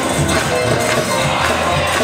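Live gospel music: a church choir singing over a band with a steady beat.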